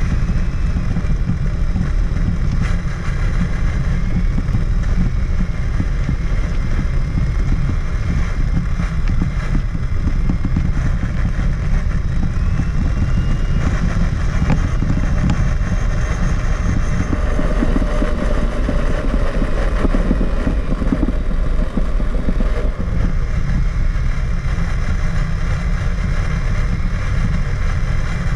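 Electric motor and gear drivetrain of a Traxxas Summit RC truck, heard from a camera mounted on the truck as it drives over rough ground. A steady low rumble and rattle carries a faint whine that rises and falls in pitch with speed. The whine grows stronger for several seconds past the middle.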